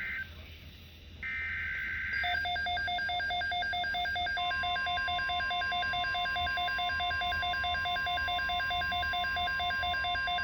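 NOAA Weather Radio alert signals: the last buzzy bursts of the digital SAME header, then a rapidly pulsing multi-tone alert beep, about four beeps a second, joined about four seconds in by the steady 1050 Hz warning alarm tone that announces a new weather message.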